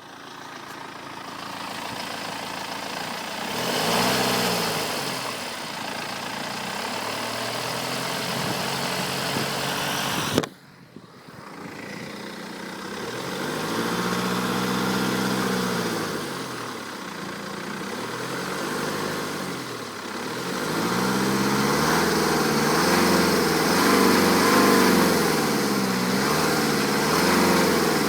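BMW 318d's N47 four-cylinder turbodiesel being revved up and down again and again, with a sharp click and a brief dip in level about ten seconds in. The engine carries the strange noise that is louder under revs, which went away once the timing chain and tensioners were replaced: the sign of a worn timing chain.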